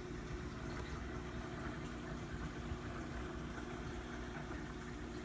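Steady hum of a running reef aquarium's pumps with an even rush of circulating water.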